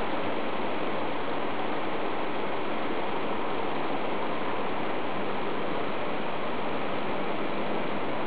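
Steady, even rushing noise with no change in level or pitch and no distinct events.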